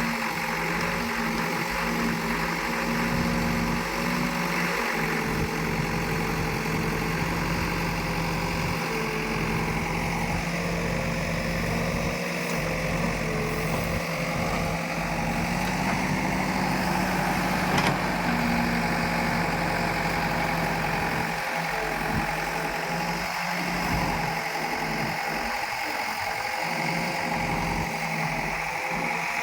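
Diesel engines of a backhoe loader and farm tractors running steadily at a constant speed, with one sharp click about 18 seconds in.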